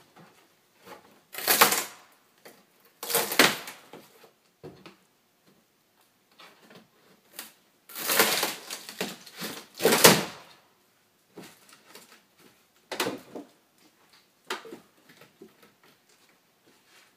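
Camper wall paneling, stapled to the framing near the wheel well, being pried and pulled loose by hand: a series of irregular cracking and tearing bursts with small creaks and clicks between, loudest a couple of seconds in and again about eight to ten seconds in.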